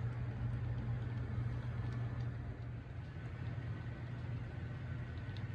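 Sound-equipped HO scale diesel locomotives, a GP7u and a GP35u, with their decoders' diesel engine sound at a steady idle or low throttle: a low, even engine drone through small model speakers.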